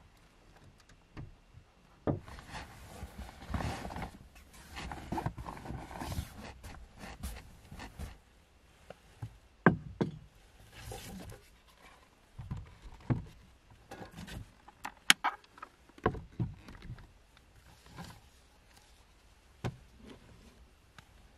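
Fabric and bedding rustling as things are spread and handled inside a small car, for several seconds, followed by scattered clicks and knocks of items being picked up and set down.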